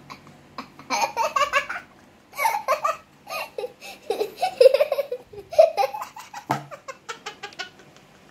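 People laughing in several short bursts, with quicker, choppier laughs near the end.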